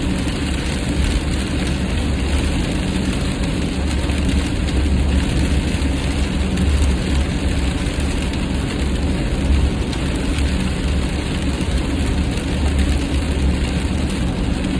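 Steady road noise of a car at highway speed in the rain, heard from inside the cabin: a low rumble of tyres and engine under the hiss of rain and spray.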